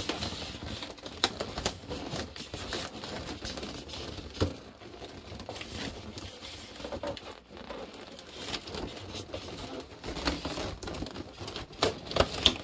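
Foil and latex balloons being handled: irregular crinkling and rubbing with light taps, as a balloon topper on a plastic stick is pushed into the neck of a stuffed clear bubble balloon.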